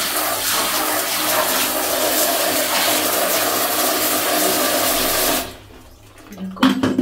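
Hot water running steadily from a tap to fill a container for soaking laundry. It stops suddenly about five seconds in, and a brief knock follows near the end.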